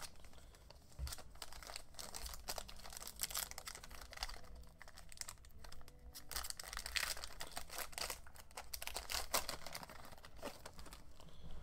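Foil wrapper of a Topps Chrome Black trading-card pack crinkling and being torn open by hand: a steady run of quick, sharp crackles.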